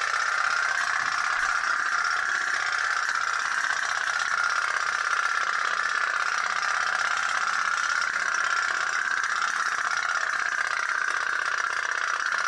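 Tin pop-pop boat running on its candle-heated steam boiler, making a steady, fast rattling putter.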